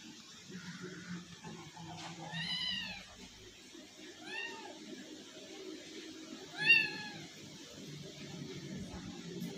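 Tabby kitten meowing three times: short, high-pitched meows, each rising and then falling in pitch. The last is the loudest.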